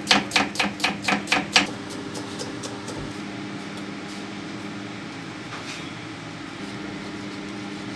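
Knife chopping through small onions onto a thick wooden chopping block: about eight quick strokes, roughly five a second, then a few fainter cuts before it stops about three seconds in. A steady mechanical hum runs underneath throughout.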